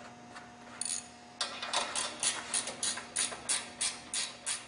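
Wrench tightening the grille guard's mounting bolts: a quick, even series of clicks, about four a second, starting about a second and a half in.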